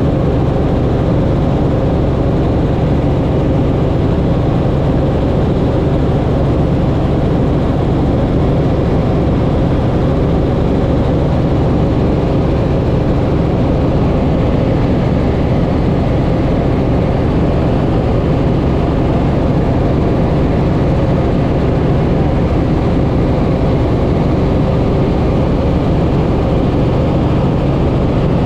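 Helicopter in cruising flight heard from inside the cabin: a steady, loud drone of rotor and engine with several held low tones, unchanging throughout.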